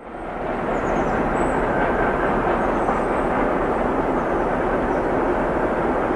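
SU46 diesel locomotive's four-stroke W2112SSF engine working hard at full throttle, hauling a heavy train up a grade. The sound fades in within the first half-second, then runs steady.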